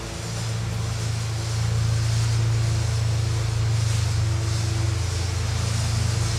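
Steady low hum of a running motor, unchanging in pitch, over a faint even hiss.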